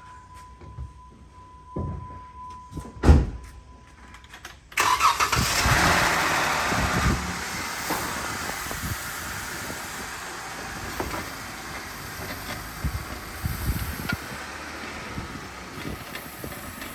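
A steady high warning beep and a couple of thumps, then about five seconds in the wrecked Jeep Wrangler's 3.6-litre V6 starts. It runs fast at first, then settles to a smooth, steady idle.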